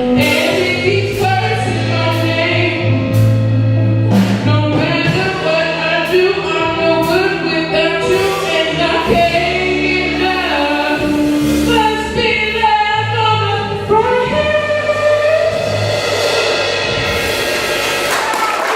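Vocal ensemble singing in close harmony over a sustained bass line with percussive hits, ending in a held chord. Audience applause starts to rise near the end.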